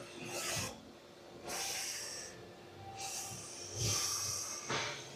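Air-over-hydraulic transmission jack hissing in three short bursts as it is worked to lower the fuel tank, the later two bursts with a thin high whistle in the hiss.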